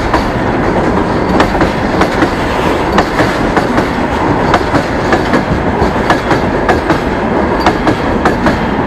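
Freight train cars rolling past close by. The wheels clack over the rail joints in a steady repeating rhythm, over a continuous rumble of the wagons.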